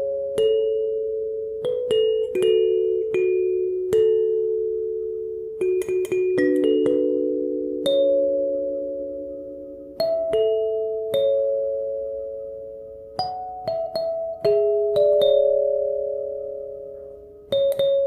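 Background music of a kalimba playing a slow melody: single plucked notes that ring out and fade, often overlapping.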